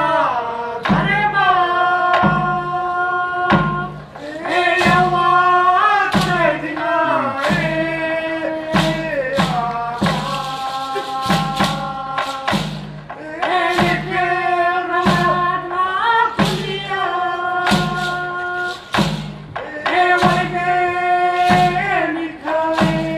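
Torres Strait Islander dance song: voices singing long held notes in phrases over a steady thudding beat of about three beats every two seconds.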